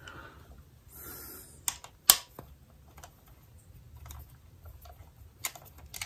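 Small metallic clicks and ticks of a hand hex-bit screwdriver seating on and unscrewing the stator-cover bolts of a Yamaha R1 engine, with brief rustling of hands; one sharper click about two seconds in.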